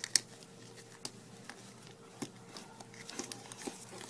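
A sheet of origami paper being folded and creased by hand: scattered crisp taps and rustles, the sharpest just after the start.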